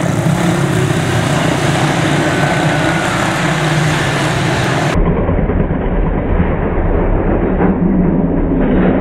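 Quarter midget race cars with single-cylinder Briggs & Stratton Animal engines running steadily at racing speed, a loud continuous engine drone. The sound changes abruptly about five seconds in, turning duller and heavier in the bass.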